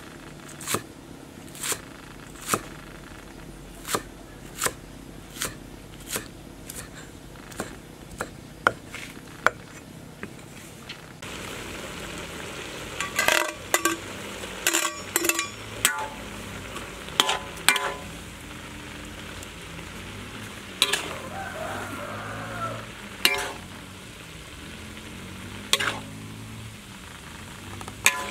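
Cleaver chopping spring onions on a wooden chopping board, knocking evenly a little more than once a second. About eleven seconds in, this gives way to pork and bamboo shoots sizzling in a wok, stirred with a spatula that clinks and scrapes against the pan.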